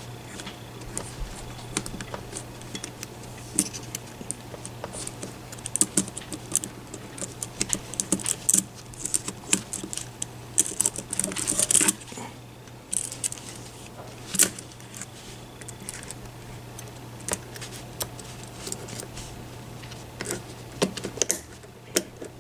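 Smith & Wesson M&P handcuffs and lock picks being worked by hand: irregular metal clicks and clinks as a partly opened cuff is picked the rest of the way and freed from the wrist. The clicks come thickest in the middle, with one sharp click a little after that.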